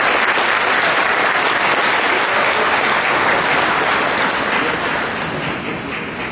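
Audience applauding, dense clapping that begins to die down about four seconds in.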